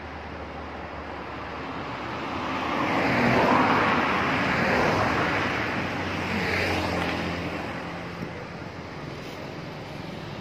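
A heavy vehicle drives past on the road: its engine and tyre noise swell to a peak about three to five seconds in, then fade away.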